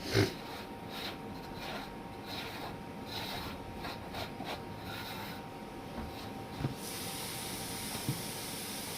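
Kitchen work sounds: a sharp knock, then scraping and rubbing of cooking utensils, with a few light knocks. A steady hiss begins about seven seconds in.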